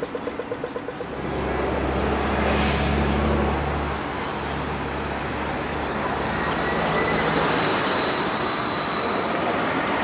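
G:link light-rail tram, a Bombardier Flexity 2, passing close by: a rapid pulsing tone in the first second gives way to a loud, steady low hum and rolling noise that swell in about a second in, with thin high whines joining in the second half.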